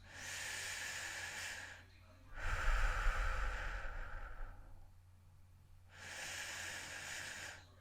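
A person breathing heavily: three slow, noisy breaths a couple of seconds apart. The middle breath is the loudest and has a low rumble under it.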